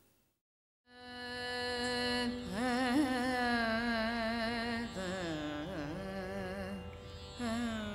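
Carnatic music in raga Nattai starts about a second in: a long held note, then a melodic line with wavering, oscillating ornaments on the notes.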